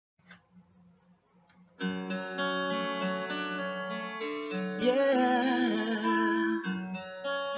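Instrumental intro of a gospel song with acoustic guitar strumming, starting suddenly about two seconds in after a few faint noises. A wavering melody line rises over the accompaniment in the middle.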